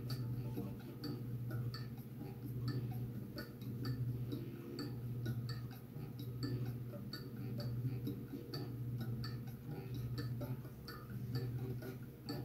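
A clock ticking steadily at an even pace, over a low steady hum.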